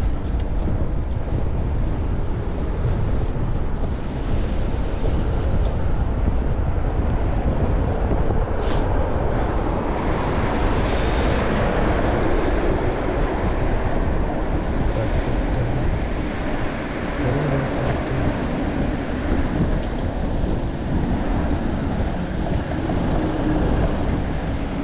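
Wind rushing over a GoPro camera's microphone on a moving fixed-gear bicycle, a steady rumbling noise with road and tyre noise underneath. A brief high-pitched sound cuts through about nine seconds in.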